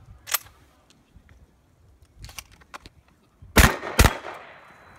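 Two loud shotgun blasts about half a second apart near the end, the second trailing off over about a second. They are preceded by a few fainter sharp cracks.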